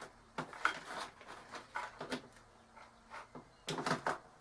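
Scattered light knocks and clicks of a hot glue gun and its plug being handled and plugged in, with a louder cluster of knocks near the end.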